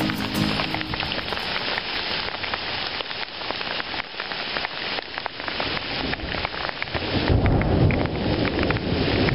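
Heavy hail falling, a dense patter of many small clicks as hailstones strike the ground and granite boulders. A low rumble of thunder swells near the end.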